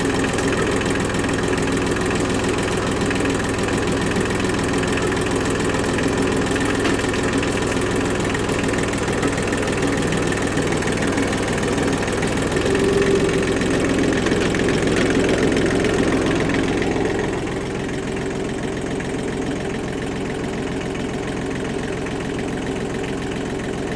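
Kubota tractor's diesel engine running steadily, louder for a few seconds in the middle and then dropping to a lower, quieter running about seventeen seconds in.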